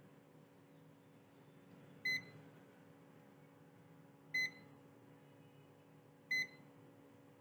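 Three short, high electronic beeps, evenly spaced about two seconds apart, over a faint steady hum.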